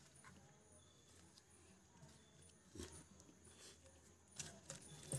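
Near silence, with three faint knocks and rustles as leaf-wrapped chicken parcels, eggs and bean pods are packed into a clay pot.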